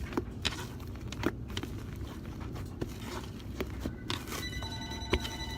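Fluffy shaving-cream slime being kneaded and stretched by hand, with irregular small sticky clicks and pops. Near the end a steady high tone of several pitches sounds for about a second and a half.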